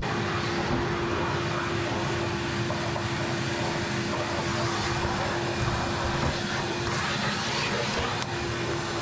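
Shop vac running steadily on suction, vacuuming up the dust blown out of a gas water heater's bottom screen: a steady rush of air with a steady whine.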